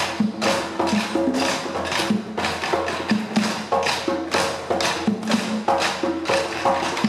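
Group of girls drumming a rhythm with sticks on wooden chairs: a dense, fast pattern of wooden knocks and clacks, with short low pitched notes running underneath.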